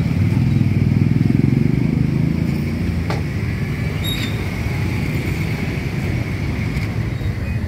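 Street traffic, mostly motorbikes, running past in a steady low rumble that swells in the first two seconds and then eases a little. A sharp metallic clink comes about four seconds in.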